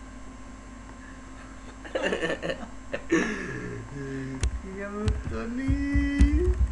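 A boy laughing and giggling in wavering, broken vocal sounds, starting about two seconds in, with a few low thumps near the end.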